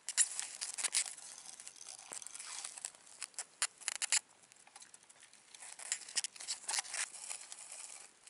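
Crinkling, rustling handling noise with scattered sharp clicks as an ice angler works a pike tip-up rig by hand at the hole, with crunching snow and stiff winter clothing.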